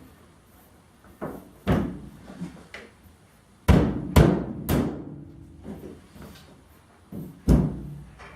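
Knocks and thuds on a car's thin sheet-metal roof panel, the metal ringing briefly after the loudest ones. The heaviest come as a quick run of three about four seconds in, with another near the end.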